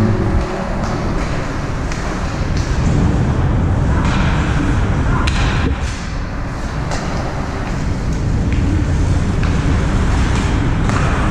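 Ice hockey game sounds in a rink: steady arena rumble and crowd noise with scattered sharp clacks of sticks and puck on the ice and boards.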